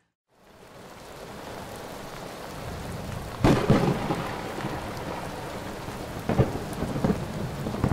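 Thunderstorm: steady rain falling, with a loud thunderclap about three and a half seconds in and two smaller cracks near the end.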